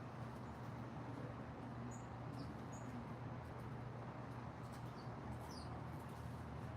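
Songbirds giving faint, short, high chirps a few times, mostly around two to three seconds in and again around five seconds in, over a steady low hum.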